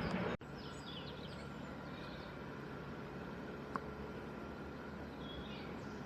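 Train noise cuts off abruptly just after the start, leaving a steady background haze with birds chirping: a few short calls about a second in and again near the end. One brief click comes in the middle.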